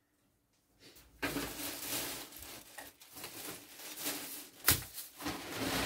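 Short straw hand broom sweeping a packed-earth floor: a run of scratchy brushing strokes that starts about a second in, with one sharp knock near the end.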